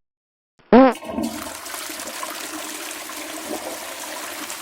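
A short squeak that rises and falls in pitch, followed by a toilet flushing with a steady rush of water.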